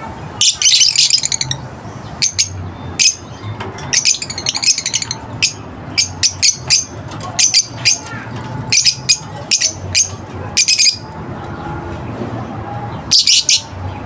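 African lovebirds chirping: short, shrill, high-pitched calls in quick clusters with brief pauses between them.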